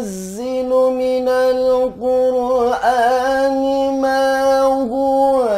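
A man reciting the Quran in a melodic tilawah style, holding long notes at a steady pitch. There are brief dips about two seconds in and shortly before the end, a slight step up in pitch about three seconds in, and the last note falls away at the end.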